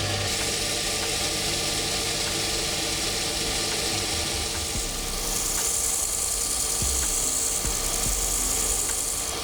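A power grinder running steadily while the end of a small carbon-steel coil spring is ground to a flat, giving a continuous hiss over a low machine hum.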